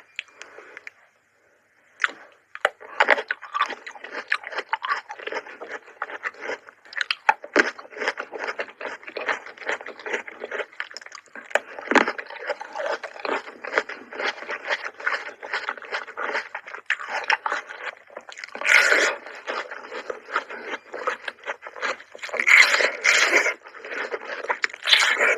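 Close-miked chewing of fresh fruit, with dense wet clicks, crunches and squishes. It starts after a short silence about two seconds in, and there are a few louder bites near the end.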